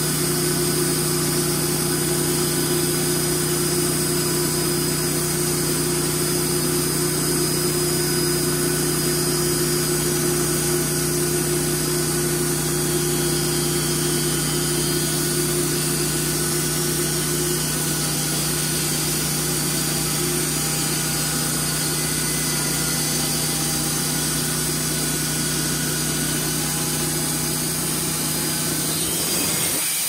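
Homebuilt sawmill's engine running steadily with a constant hum. Near the end the engine sound drops away abruptly.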